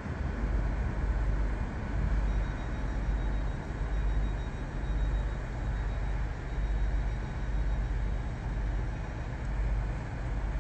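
Diesel engines of Class 43 HST power cars running as the train passes through the station: a steady low rumble that swells and eases every second or two, with a faint thin high whine from about two seconds in.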